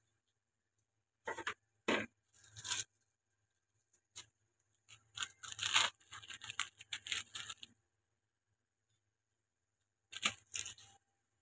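Short bursts of rustling and tearing from food being handled while a sandwich is put together, in three groups: around the first few seconds, a longer busier stretch in the middle, and again near the end.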